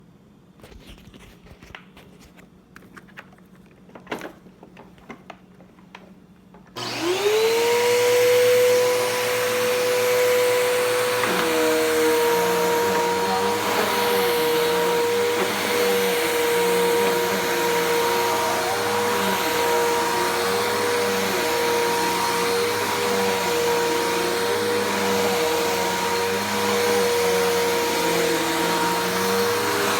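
Bissell PowerForce Helix Turbo 68C71 upright vacuum cleaner. After a few quiet clicks, its motor is switched on about a quarter of the way in, whining up quickly to a steady pitch. From about a third in, the sound swells and fades regularly, roughly every second and a half, as the cleaner is pushed back and forth over the floor.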